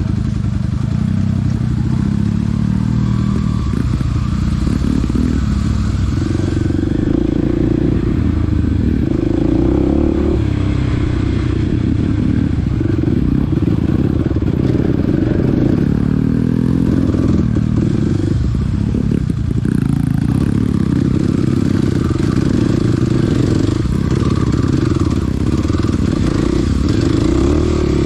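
Small dirt bike's engine running under way, its note rising and falling as the throttle opens and closes, with some rattling and clatter from the bike.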